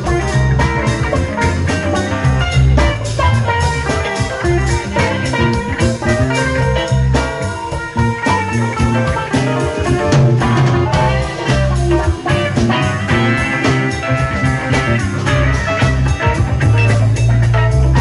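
Live rock band playing an instrumental jam: two electric guitars, electric bass, keyboards and drum kit, with a steady drum beat and a heavy bass line under the guitar lines.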